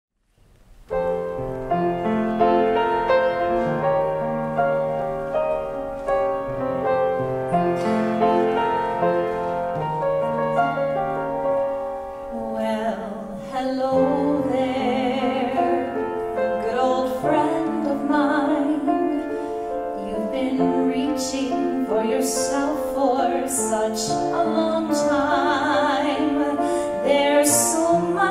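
Solo piano plays a slow introduction, and about twelve seconds in a woman's voice enters singing with vibrato over the piano accompaniment.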